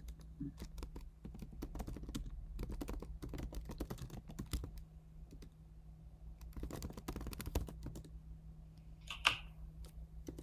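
Typing on a computer keyboard in two runs of rapid keystrokes, the first longer than the second, with one short, louder noise about nine seconds in.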